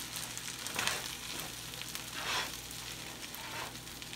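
Vegetable fried rice sizzling in a hot nonstick skillet as it is stirred and turned with a slotted spatula. There is a steady sizzle with two louder swells, about a second in and a little past halfway.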